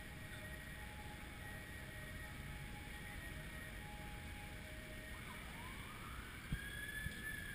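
Distant emergency-vehicle siren: one slow wail starting about five seconds in and rising in pitch. It sits over a steady rumble of city traffic and wind, with a short knock near the end.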